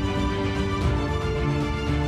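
Background music: sustained notes and chords over a steady low beat.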